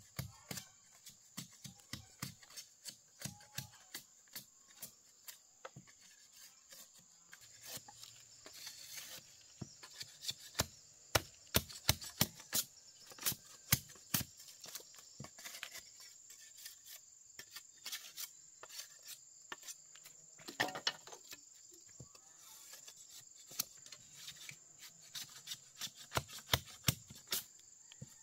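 A series of sharp, irregular knocks, one to three a second and loudest in the middle, like chopping or tapping on wood. Behind them runs a steady high-pitched insect drone.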